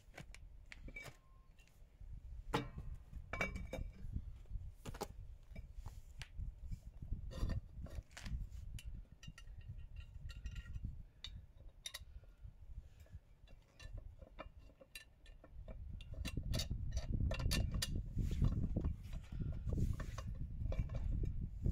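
Irregular light clicks, clinks and knocks of metal parts being handled, with a low rumble coming in about two-thirds of the way through.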